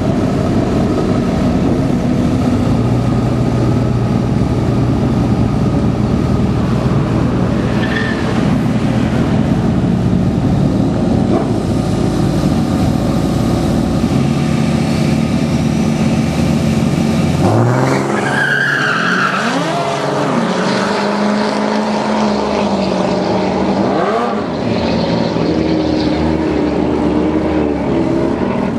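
Diesel pickup truck engines running loud at the drag strip starting line. About two-thirds of the way in they rev up and launch, and the engine note rises and falls through the gears as the trucks pull away down the strip.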